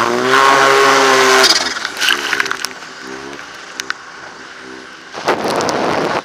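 Arctic Cat M1100 Turbo snowmobile's turbocharged four-stroke engine revving high for about a second and a half, then easing back to a lower, quieter running. About five seconds in comes a loud rush of noise lasting about a second.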